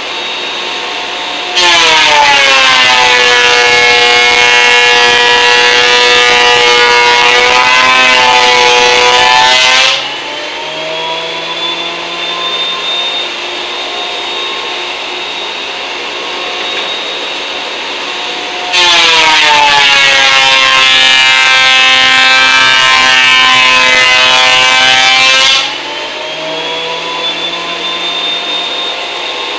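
Benchtop thickness planer running, with two passes of a glued-up hardwood cutting-board blank through the cutterhead. Each pass is a loud planing noise lasting several seconds, with the motor's pitch dropping under the load. Between the passes the machine runs free and its whine climbs back up to speed.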